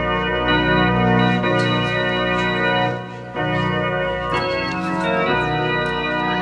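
Church organ playing loud held chords that change every second or so, with a brief break about three seconds in.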